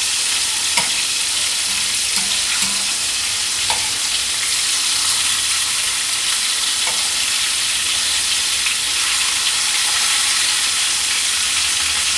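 Cornmeal-coated catfish pieces frying in hot oil in a cast iron skillet: a steady sizzle, with a few faint clicks here and there.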